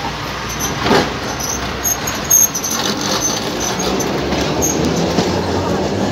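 Alexandria tram car rolling slowly on its rails with a steady rumble. Short high wheel squeaks come between about one and a half and two and a half seconds in, with a knock about a second in and a sharper one soon after.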